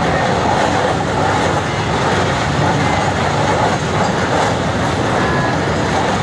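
Indian Railways goods train's wagons rolling past on the track, a steady loud rumble and rattle.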